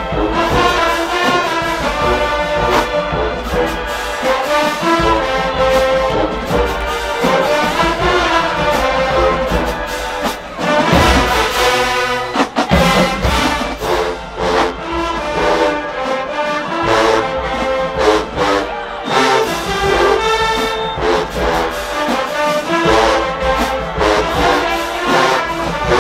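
Marching band playing a brass-heavy tune, trombones to the fore, over a steady beat of sharp percussive hits, with a brief break and accented hits about halfway through.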